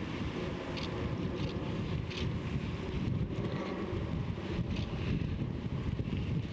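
Wind buffeting the microphone: a steady low rumble with a few faint short ticks.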